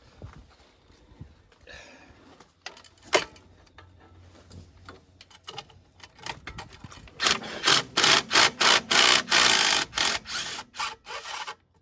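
Hand tools working on metal: scattered clicks and one sharp knock, then a run of quick rasping strokes, about four a second, for several seconds.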